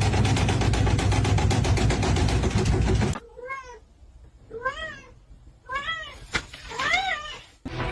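A loud, fast, even pulsing sound for about three seconds, then a cat meowing four times, each meow rising and falling in pitch.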